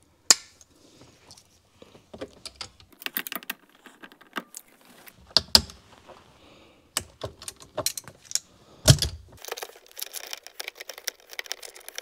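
Hand tools working a 10 mm steering-column clamp bolt: vise-grip pliers clamped on a nut-driver handle click and rattle against metal. The clicks are irregular and sharp, with one sharp knock about nine seconds in and a dense patch of small rattles near the end.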